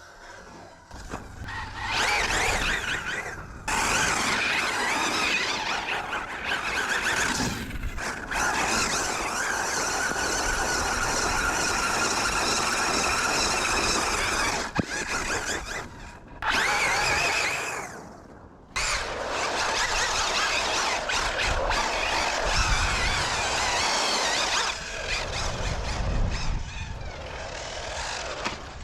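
A brushless-motor 1/8 off-road RC car (ZD Racing Pirates 3 on 6S) being driven hard. The high motor whine rises and falls with the throttle over tyre and ground noise, and drops out briefly a few times.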